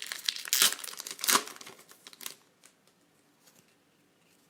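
Foil trading-card pack wrapper crinkling and tearing as a pack of AFL cards is ripped open, loudest twice in the first two seconds, then stopping, with only faint ticks of card handling after.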